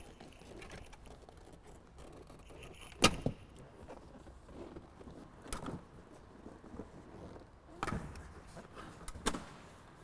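Rear seat of an E36 BMW M3 being lifted and pulled out of the car: four sharp knocks and clunks of the seat against the body, the loudest about three seconds in.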